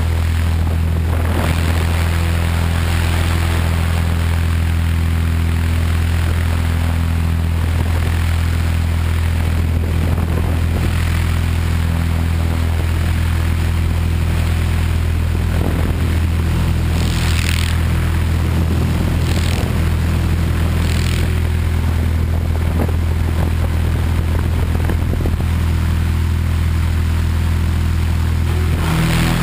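Tarot 500 electric RC helicopter heard from its onboard camera: a steady, loud drone of the main rotor and motor. A few short hissing rushes of air come about two-thirds of the way in.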